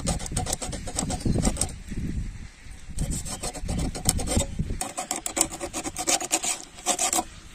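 Scratchy rubbing and scraping of a whole pomfret fish being cleaned and cut by hand on a steel plate, in a run of short strokes. About five seconds in the strokes turn crisper as the fish is sliced against a fixed upright blade.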